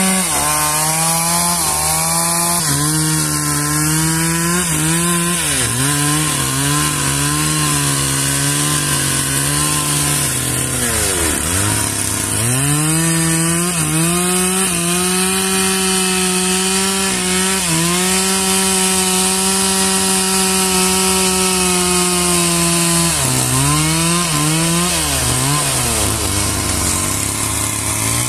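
An engine-driven sawmill saw cutting through trembesi (rain tree) wood. Its running pitch sags as the blade bites and recovers as it frees, with a deep drop around the middle and several quick dips near the end.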